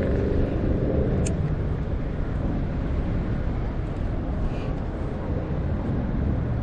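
Steady rumble of road traffic, with one vehicle's engine tone fading away over the first second or so and a brief click about a second in.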